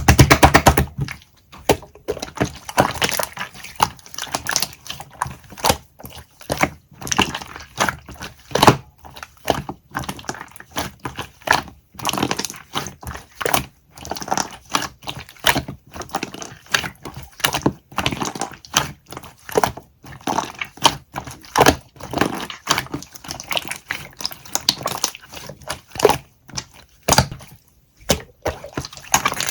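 Slime being squeezed and pressed by hand, giving a dense, irregular run of crackles and clicks, loudest in the first second.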